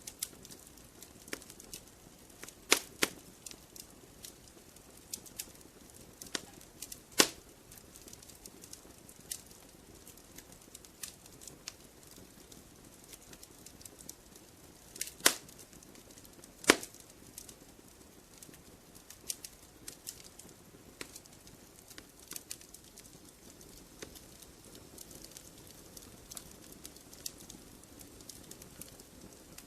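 Wood fire crackling: irregular sharp pops and snaps over a soft steady hiss, with a few louder cracks.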